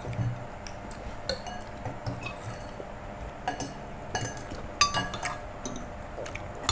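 Metal spoons clinking against ceramic soup bowls and plates as people eat, in scattered irregular clinks.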